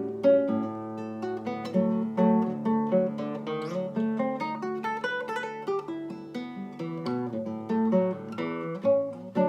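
Acoustic guitar played fingerstyle: a quick, continuous run of plucked notes ringing over lower bass notes.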